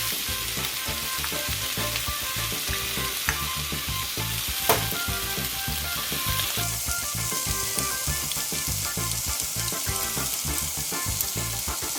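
Chopped onion, coriander stalks, garlic and peppers sizzling steadily in cooking oil in a hot pan while they are stirred, with a sharp click of the utensil about five seconds in.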